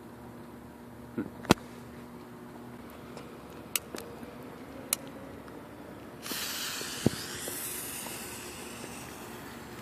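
A few sharp clicks, then about six seconds in a firework fountain catches and sprays with a loud, steady hiss.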